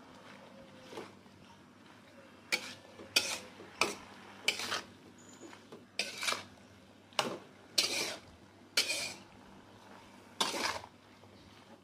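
Metal spatula scraping and knocking against a wok as chopped mustard greens are stir-fried: about a dozen irregular strokes, some in quick pairs, with short pauses between.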